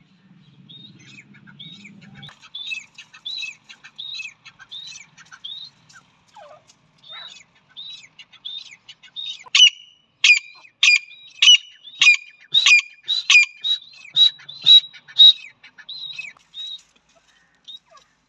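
Female grey francolins (teetar) calling: soft, scattered chirping calls, then from about ten seconds in a run of loud, sharp calls, roughly three every two seconds, each a quick downward sweep, tailing off near the end.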